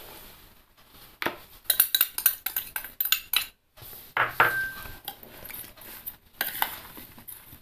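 A metal spoon clinking and scraping against a small glass bowl and a serving bowl as spice powders are tapped out onto salted tender mangoes and then stirred in. Quick runs of taps, a short pause, one brief ring, then more scraping near the end.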